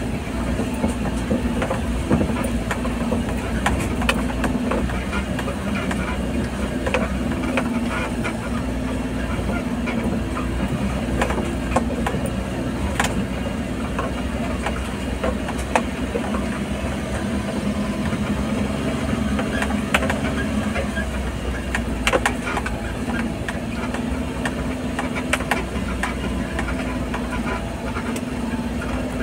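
Vehicle engine running steadily, heard from inside the cab while driving a rough dirt track, with frequent short knocks and rattles scattered throughout.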